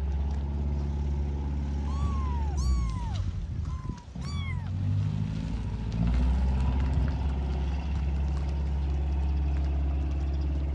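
Kittens mewing: four short, high calls that rise and fall, between about two and five seconds in. A steady low engine hum runs underneath.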